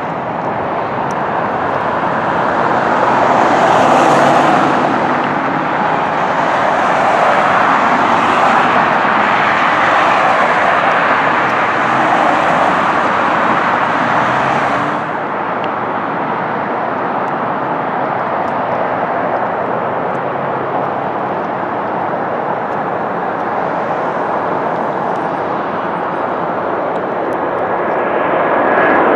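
Jet airliner engines on landing: a loud, fluctuating jet noise as a twin-engine jet comes in and rolls out on the runway. About halfway through the noise drops suddenly to a steadier, quieter level, then swells near the end as a Boeing 737 approaches low on final.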